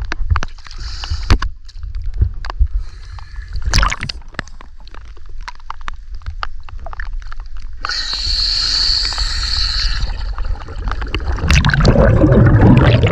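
Water splashing and gurgling around a diver in scuba gear, with scattered knocks. About eight seconds in comes a steady two-second hiss, and near the end loud low bubbling.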